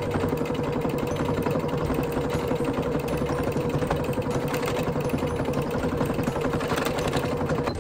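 Electric sewing machine running steadily as it stitches fabric: a fast, even needle chatter over the motor's hum.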